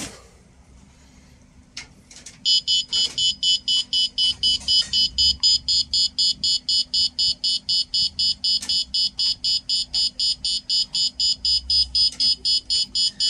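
ATOM-SCAN СБТ-10А dosimeter beeping rapidly and evenly, about four high-pitched beeps a second, starting about two and a half seconds in, as its count rate climbs over damp fertilizer. The owner puts the higher reading down to radon decay products the hygroscopic fertilizer drew in from the air.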